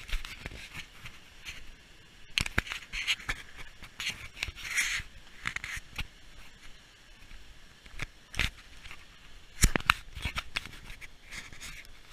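Handling noise from a handheld camera: irregular scratching, rubbing and knocks as the camera and its microphone brush against clothing while it is moved about. There is a couple of sharper knocks late on.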